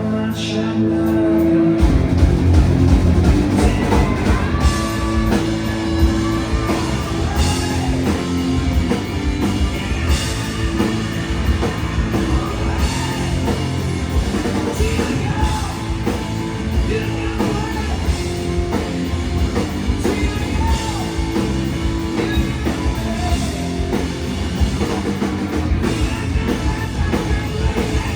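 Live rock band playing loud, with drums, electric guitars and a singer. The full band with drums comes in about two seconds in.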